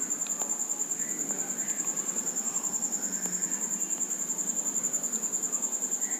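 Insect trilling steadily, a high-pitched sound pulsing about a dozen times a second, over faint room noise with a few faint clicks.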